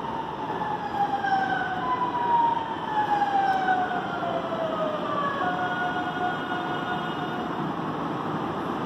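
CPTM electric commuter train pulling in and braking to a stop at the platform. Several whining tones from its traction motors glide steadily down in pitch over about six seconds and fade out near the end, over the steady rumble of wheels on rail.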